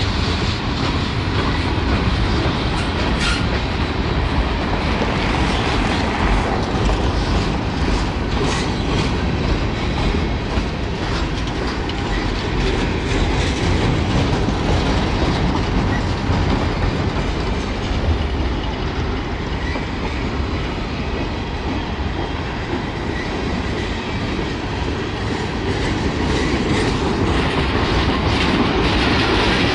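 Norfolk Southern freight train's boxcars and tank cars rolling past: a steady rumble of steel wheels on rail, with clicks as the wheels pass over the track.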